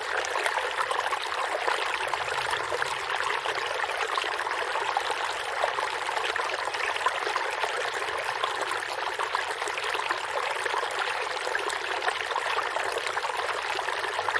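Running water of a small stream, a steady trickling and splashing.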